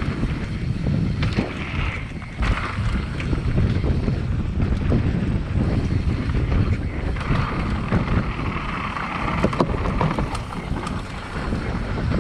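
Wind buffeting the microphone of a mountain-bike ride-along camera while the bike rolls down a dirt trail, its tyres running over the dirt and the bike knocking and rattling over bumps.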